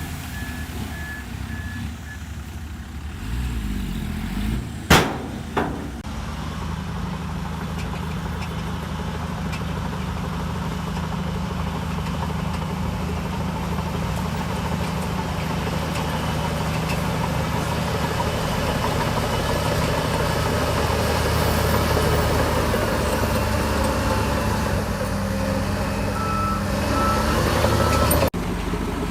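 Heavy diesel engine of a Shantui DH17C3 bulldozer running under load, with a reversing alarm beeping in the first couple of seconds and again near the end. Two sharp knocks come about five seconds in, and the engine grows slightly louder toward the middle.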